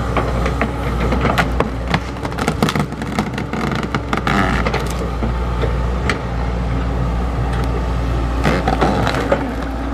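XCMG XE75G excavator running steadily while digging earth, with bursts of knocking and clatter from the bucket and arm, a cluster in the first few seconds and another near the end.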